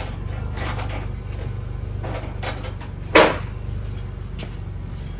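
Tools clattering and being handled, with one sharp clunk about three seconds in, over a steady low hum.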